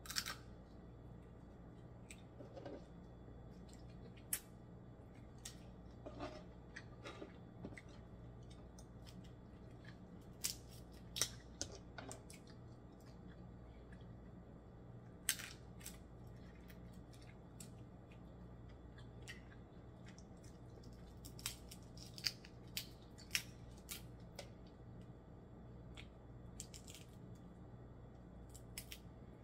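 Scattered sharp clicks and small crackles of snow crab shell and meat being picked apart by hand, with occasional chewing sounds, over a low steady hum.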